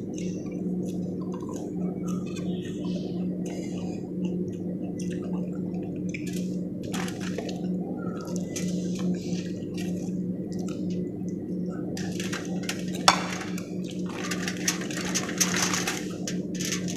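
Close-up eating sounds: wet chewing and lip smacks from someone eating grilled fish and arugula leaves, as small clicks and ticks over a steady low hum. There is one sharp click about 13 seconds in, and the crackling grows thicker over the last few seconds.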